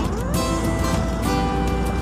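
Background music with held notes and a steady beat; one note slides up in pitch at the start.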